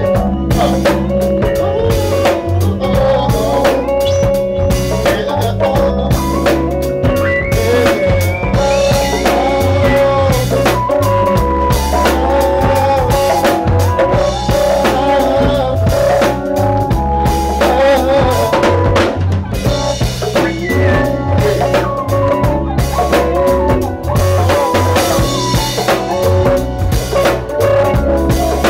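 Live band playing an R&B/soul number: a drum kit with snare, rimshots and bass drum keeping a steady beat under sustained melody and bass lines.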